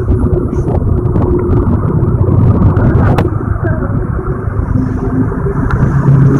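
Heavy diesel engine running steadily close by, a loud low rumble, with a sharp click about three seconds in.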